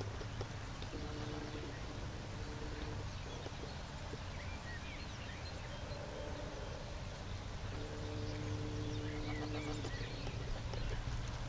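Outdoor pond-side ambience with wind rumbling on the microphone and a few faint bird chirps. A steady low two-note hum from an unseen source comes and goes three times, the longest stretch near the end.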